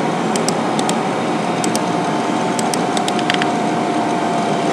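Steady background hiss and hum with a faint high tone, broken by short, light clicks of a computer mouse and keyboard every so often as objects are selected and copied in CAD software.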